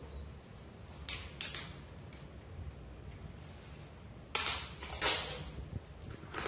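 Packaging being handled while a parcel is packed: a few short, scratchy rustles. There is a quick pair about a second in, a longer pair around four to five seconds in (the loudest of them), and one more at the very end.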